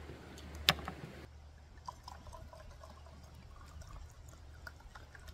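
One sharp knock on a wooden cutting board about a second in, then liquor poured from a glass bottle into a stainless steel cup, trickling and splashing softly.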